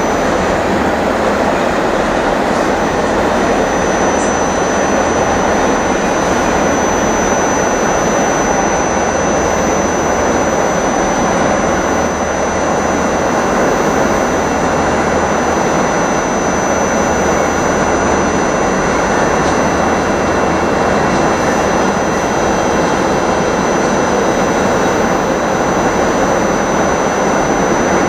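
Diesel train engine running steadily, with a constant high-pitched whine over the engine noise.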